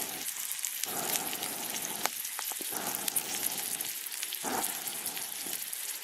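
Steak sizzling as it grills over a campfire, a steady crackling hiss with a few sharp pops about two seconds in.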